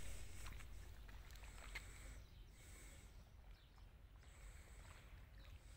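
Near silence: faint outdoor ambience with a steady low rumble and a few faint ticks.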